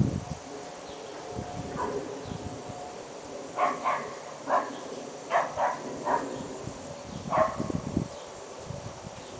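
A series of short, sharp animal calls, about seven in four seconds and some in quick pairs, such as barks. Low thumps come near the start and again after the last call.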